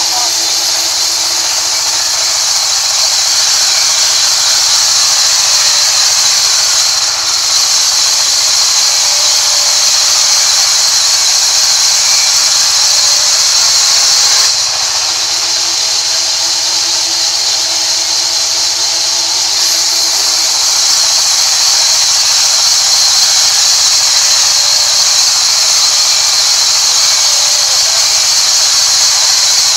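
Large vertical band saw ripping rain tree timber: a loud, steady, high-pitched hiss and squeal of the blade cutting through the wood, with a slight drop in level about halfway through.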